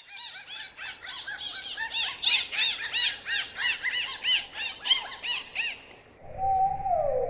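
Dolphin whistling: a fast run of short chirps that rise and fall in pitch, about four a second, for some six seconds. After a brief pause comes a lower, held whistle that dips in pitch near the end.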